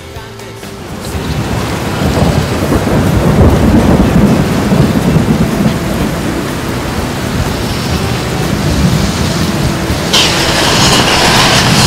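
Thunderstorm: a long low rumble of thunder builds about a second in and rolls on for several seconds, and a louder rushing hiss of storm noise comes in near the end.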